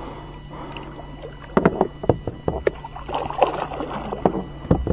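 Kayak being paddled: paddle strokes splashing in the water, with sharp knocks, in a cluster about two seconds in and again near the end.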